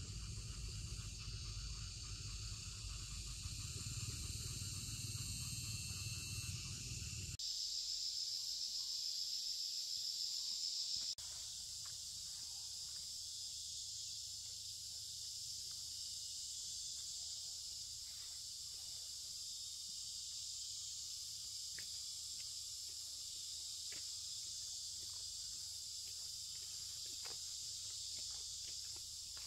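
Steady high-pitched insect chorus. A low rumble sits under it for the first seven seconds or so, and a few faint clicks come later on.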